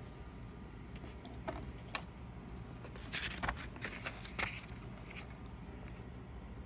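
Paper pages of a Stalogy B6 notebook being turned by hand: a few faint ticks, then a cluster of short paper rustles about three to four and a half seconds in.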